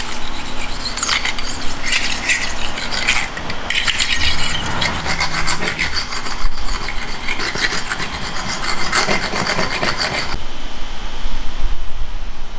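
Rapid, irregular scraping and rubbing strokes of a tool worked along the rail of a metal bar clamp, stopping abruptly about ten seconds in.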